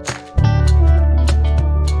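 Background music: held bass notes and chords over a steady beat. The bass drops out briefly just after the start, then returns.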